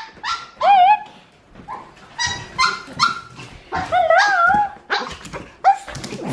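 A small dog whining and yipping in a string of short, high calls, some wavering up and down in pitch: an excited greeting of its owners coming home.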